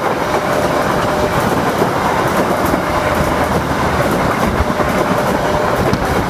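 Passenger train carriages rolling past at close range: a steady, dense rumble and rattle of wheels on the rails that holds at an even level throughout.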